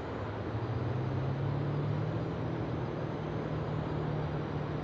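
Steady low mechanical hum of a distant engine over a faint even hiss, holding one pitch throughout.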